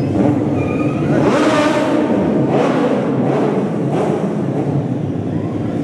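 A stunt motorcycle's engine revving and running as the rider holds stoppies, balanced on the front wheel under hard braking, in a large exhibition hall.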